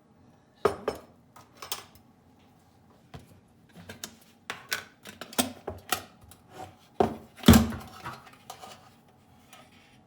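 A spoon clinking and tapping against containers while a tablespoon of powdered milk is scooped and added to a blender jar: a string of sharp clicks and knocks, the loudest about seven and a half seconds in.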